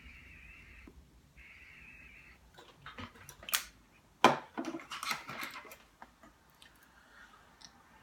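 Butane-insert Zippo lighter's jet flame hissing in two spurts while a tobacco pipe is lit, stopping about two and a half seconds in. Then comes a run of clicks and knocks from handling the lighter and pipe, the loudest a sharp clack about four seconds in.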